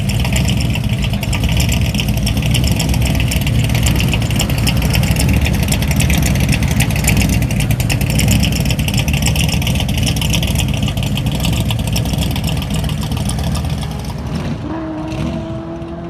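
Supercharged big-block V8 of a 1969 Corvette running at low speed, a loud, choppy exhaust rumble of rapid, even pulses. Near the end it gives way to a quieter, slowly rising engine hum.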